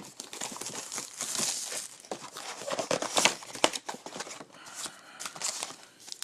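Plastic shrink wrap and cardboard of a sealed trading-card hobby box being torn and crinkled open by hand, with irregular crackling rustles and sharp snaps.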